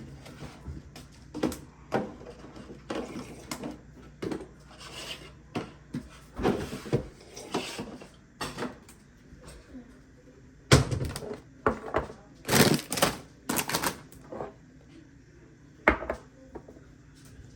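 Groceries being handled and put away: a string of knocks, thuds and rustles, with louder clusters of bangs past the middle and one sharp knock near the end.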